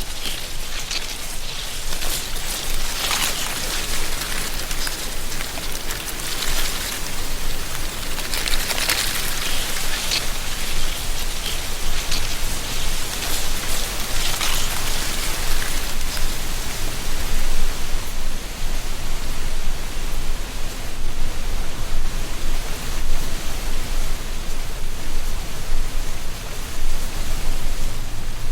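Wind blowing through a tree canopy with dry leaves rustling: a steady hiss with brief louder gusts of rustling in the first half, evening out later.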